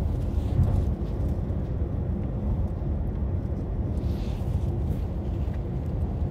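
Steady low background rumble with no speech.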